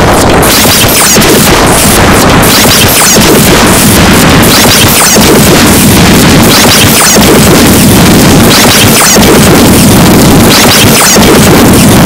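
Harsh industrial noise music: a loud, dense wall of distorted noise with short swells that come again every second or two.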